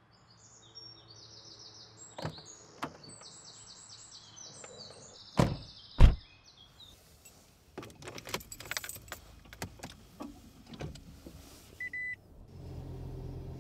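Small birds chirping in quick, high repeated notes, cut through by two heavy thumps a half-second apart. Then clicking and rattling inside a car, a short beep, and a car's low steady running hum starting up near the end.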